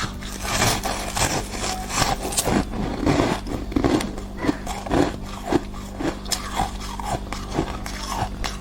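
Thick, crisp freezer-frost ice being bitten and chewed up close, a crunch about every half second, over a steady low hum.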